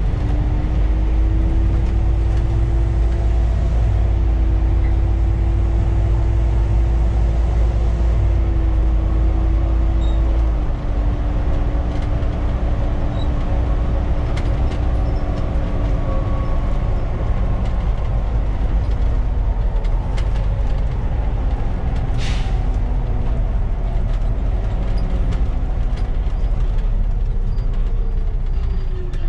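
Loud Volvo B7TL double-decker's diesel engine and drivetrain running on the move, a deep rumble with a steady whine. The whine drops in pitch and loudness about ten seconds in and rises again near the end, with a brief hiss a little after twenty seconds.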